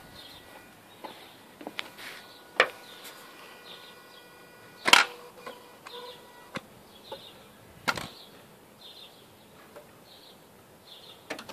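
Mazda RX-8 making sporadic sharp clicks and cracks with the engine switched off, the loudest about two and a half, five and eight seconds in, over a faint repeating high chirp. The owner cannot place the noise and wonders whether it is a pump or the valves.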